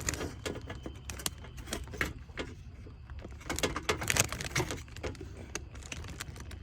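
A new ignition coil being handled and pushed down into the spark plug well until it seats: a quick, irregular run of small plastic clicks, taps and rattles.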